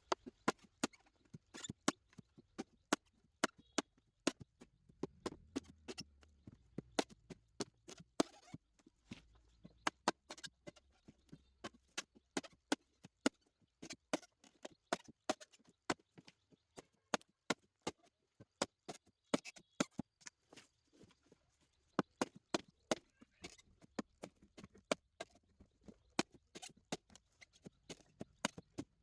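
Rapid, irregular sharp knocks and taps, several a second, as of hand tools striking hard material during repair work.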